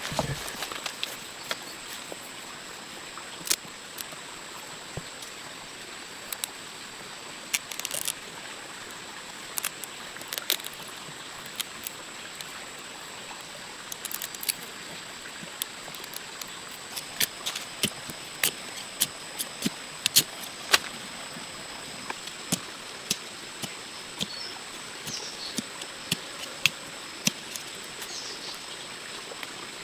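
Irregular sharp clicks and knocks, coming closer together in the second half, over a steady outdoor hiss with a thin, steady high tone.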